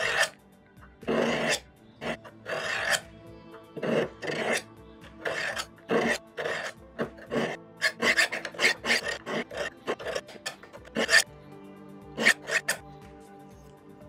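Steel knife blade scraped in alternating strokes down diamond sharpening rods set in a V at 30 degrees, each stroke a rasping scrape, with heavier pressure than usual to bring back a completely dull 1095 carbon-steel edge. The strokes come faster about halfway through and stop shortly before the end, over faint background music.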